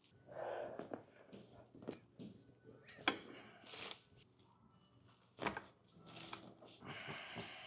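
Rustling and shifting of a person moving on a chiropractic treatment table during an adjustment. A few sharp clicks break through, the loudest about three seconds in.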